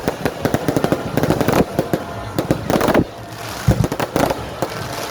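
Fireworks going off in a dense, rapid run of bangs and crackling that thins out about three seconds in, followed by a few louder single bangs.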